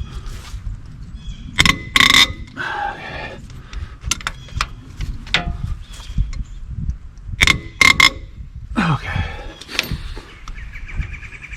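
Hand tools working on the cylinder head bolts of a Ford 555 backhoe engine as they are broken loose: a wrench and socket clank and click, with sharp metallic knocks that ring briefly, twice near two seconds in and a cluster near eight seconds in.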